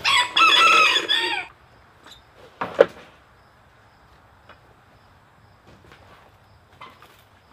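A rooster crowing once at the start, a loud call about a second and a half long. A sharp knock follows a second later.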